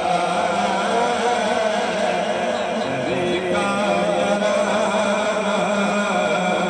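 Male voices chanting a naat, an Islamic devotional song, in a steady, continuous vocal line with layered voices behind it.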